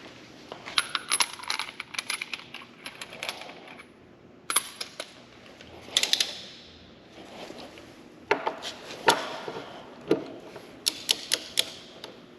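Metal hand tools and small metal parts clinking and clicking in short, irregular clusters, with pauses between.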